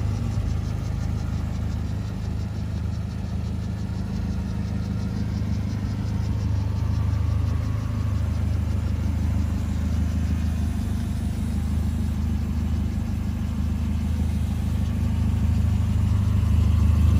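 1987 Alfa Romeo Spider Quadrifoglio's twin-cam four-cylinder idling steadily as it warms up after a cold start. Its exhaust note is a deep, even rumble, a little louder than stock because the stock muffler has been removed, leaving only a glass pack behind the axle.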